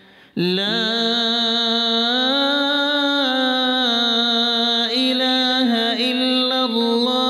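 A single voice chanting an Arabic zikr, holding one long drawn-out note that begins after a short breath and slowly rises in pitch about two seconds in.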